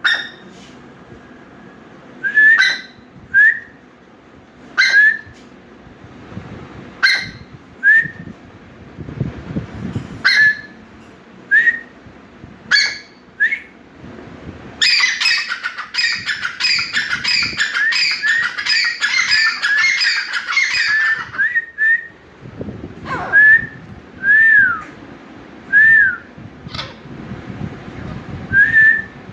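Black francolin (teetar) calling: loud, harsh, whistled phrases of quick upswept notes, repeated every second or two. About halfway through, a dense run of overlapping calls lasts several seconds before the single phrases resume. These are the birds' breeding-season territorial calls.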